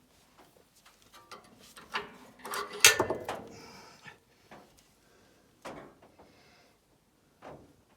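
Sawmill blade-guide parts and tools being handled by hand: a series of clicks and knocks, with the loudest clatter about three seconds in and a few single knocks later.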